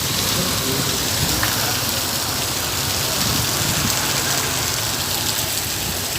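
Heavy rain falling steadily: a dense, even hiss of rain on surfaces, with scattered drops ticking through it.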